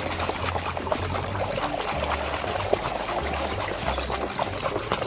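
Water pouring and splashing over a muddy toy as it is rinsed and scrubbed clean by hand.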